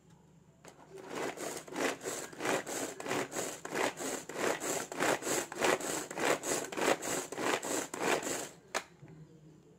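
Pigeon Handy Chopper, a manual pull-cord vegetable chopper, being pulled again and again so its three blades spin through onion pieces in the plastic bowl: even, repeated strokes about three a second, starting about a second in and stopping near the end with a sharp click. The onion is being chopped finer.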